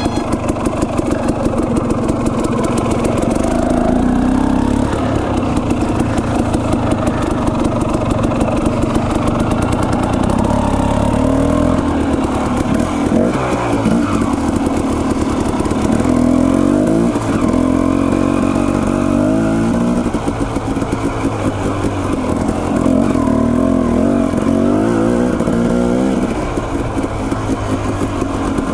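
Dirt bike engine running under load, its pitch rising and falling repeatedly as the throttle is opened and closed and gears change.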